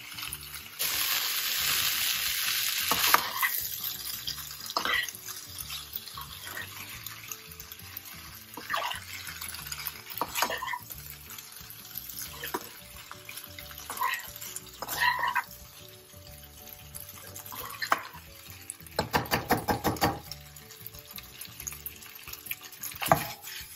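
Perforated steel spatula stirring and scraping fusilli pasta in a non-stick kadai, with scattered scrapes and knocks against the pan. There is a loud hiss for about two seconds near the start, and a quick run of taps about 19 seconds in.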